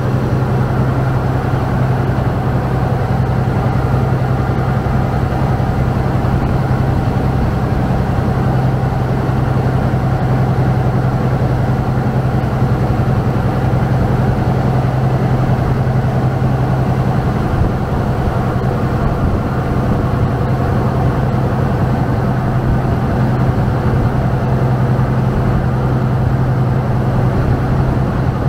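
Saen Saep canal express boat's large diesel engine running steadily at cruising speed, a loud constant low drone, with the rush of the churning wake along the hull.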